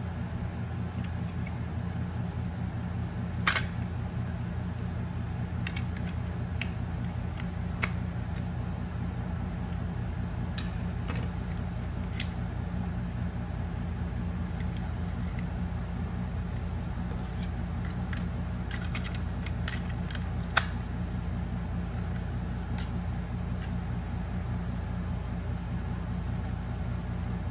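Light, sharp plastic clicks and taps from handling a small Logitech wireless mouse, a handful of them spread out, the sharpest about twenty seconds in, over a steady low hum.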